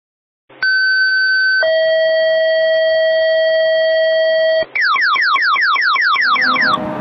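Fire-dispatch two-tone paging alert: a high steady tone for about a second, then a lower steady tone for about three seconds, followed by a rapid run of falling electronic sweeps, about five a second. Near the end the sweeps stop and a fire truck's engine and road noise come in.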